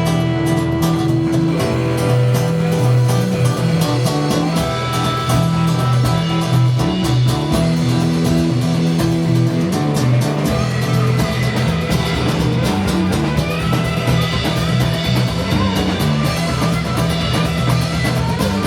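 A rock band playing an instrumental passage without vocals: guitar over a steady low bass line, with drums keeping the beat.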